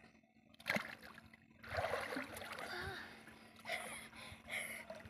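Water splashing and sloshing as a child ducks under and comes back up in a shallow pond. There is a sudden splash about a second in, then a longer stretch of sloshing.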